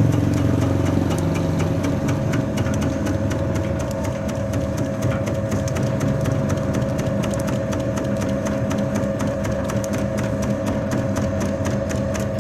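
Cassava chip slicing machine running: a steady motor hum with a fast, even clacking.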